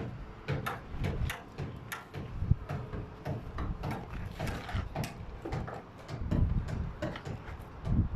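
A series of irregular clicks and knocks, several a second, over a low rumble.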